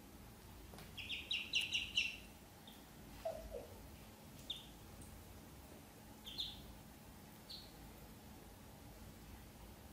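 Ducklings peeping: a quick run of about six high peeps, then single peeps every second or two. A brief lower call comes about three seconds in.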